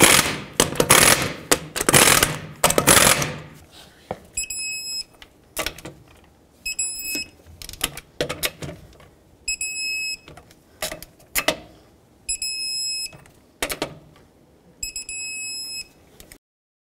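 Impact gun running the wheel's lug nuts down in loud bursts for about three seconds. Then a torque wrench ratchets with short clicks and beeps five times, each beep held for about a second, as each of the five lug nuts reaches its 100 ft-lb torque setting.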